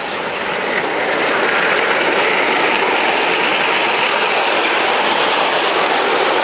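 Ride-on 5-inch gauge Thomas the Tank Engine model train rolling past close by on its steel rails: a steady rolling rumble of wheels on track that grows louder over the first second or two as it approaches, then holds.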